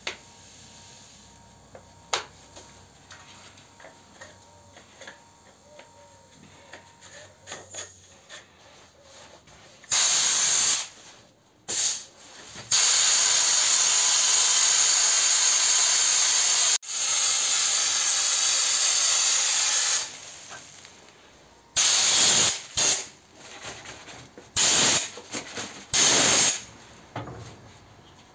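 Handheld gravity-feed sandblasting gun blasting grit at a small metal part, with loud compressed-air hiss. After about ten seconds of faint clicks while the gun is handled, it fires a short burst, then one long blast of about seven seconds, then several short bursts near the end.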